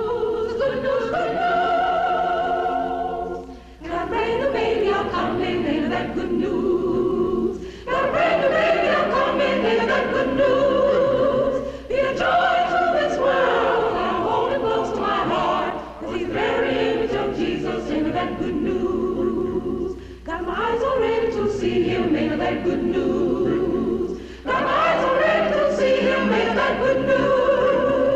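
A choir singing in long held phrases of about four seconds each, with a short break between phrases, over a steady low hum.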